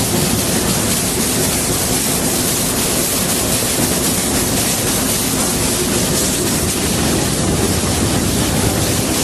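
Steam locomotive Ward Kimball (Disneyland Railroad No. 5) under way, heard from inside its cab: a steady, loud rushing noise with no distinct chuffs or beat.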